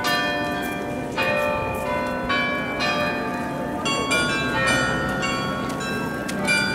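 Tower carillon playing a tune: bells of different pitches struck one after another, each note ringing on under the next.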